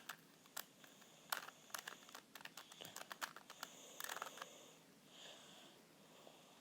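Plastic Rubik's Cube turned by hand: faint, irregular clicks and clacks of its layers rotating, bunched into quick runs of turns.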